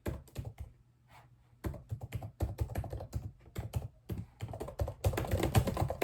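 Close-miked ASMR clicking: rapid, irregular sharp clicks and taps, sparse at first, then coming quickly from about a second and a half in and growing denser near the end.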